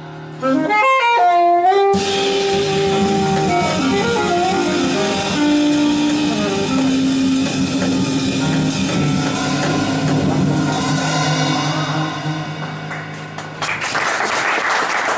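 Live jazz quartet of alto saxophone, piano, double bass and drums: the saxophone plays a quick rising run, then the band lands on long held notes to close the tune. Audience applause breaks out near the end.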